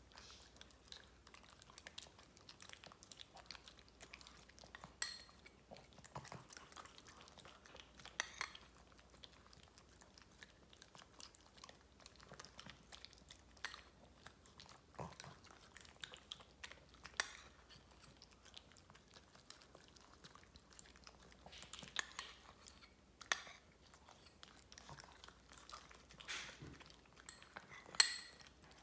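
Two shih tzus licking and chewing soft food off a spoon, with a few sharp clinks and scrapes of the spoon against the bowl.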